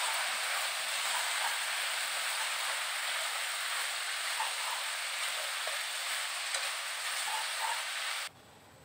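Glass noodles and sliced vegetables sizzling in hot oil in a wok as they are stir-fried with chopsticks: a steady frying hiss with a few small clicks and pops, cutting off suddenly near the end.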